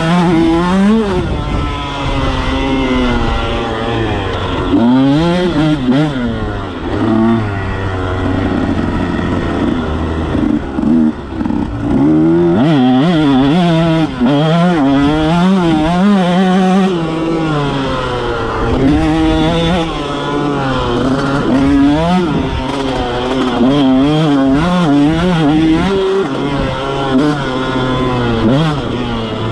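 KTM motocross bike's engine revving hard under riding, its pitch climbing and dropping again and again as the rider opens and shuts the throttle and changes gear around the dirt track.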